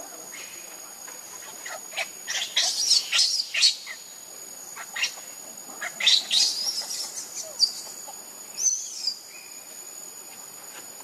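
Infant macaque crying in shrill, high-pitched squeals: a rapid cluster of short cries, a second cluster a little later and one more gliding call near the end. A steady thin high insect drone runs underneath.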